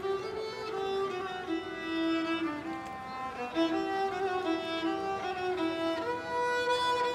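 A bowed string instrument, held upright on the player's knee, playing a melody of held notes that step from one pitch to the next.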